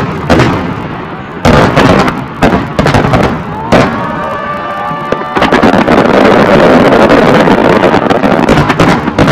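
Aerial fireworks display: a quick run of loud shell bursts, then several whistling shells rising in pitch about four seconds in, followed by a dense, continuous barrage of overlapping bursts and another sharp bang near the end.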